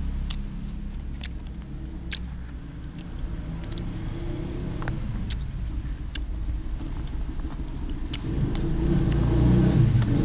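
Motor vehicle engine running close by, growing louder near the end, with scattered light clicks and scrapes of a metal spoon scooping rice from a paper wrapper.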